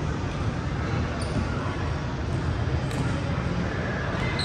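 Ambience of an indoor volleyball game in a large gym hall: indistinct voices echoing over a steady low rumble, with a few brief high squeaks.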